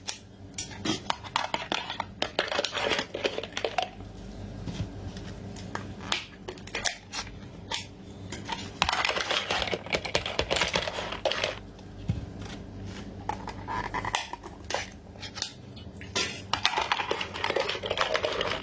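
Shellfish shells and tableware clinking and clattering against dishes in many irregular clicks, with longer stretches of handling noise in between.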